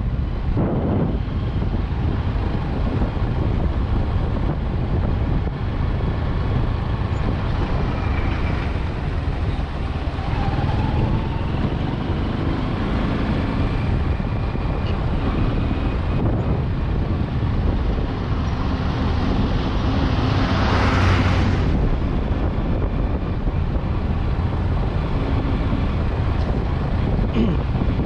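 Steady wind buffeting on the microphone over the engine and tyre noise of a vehicle driving along a dusty unpaved road. A louder hiss swells and fades about twenty seconds in.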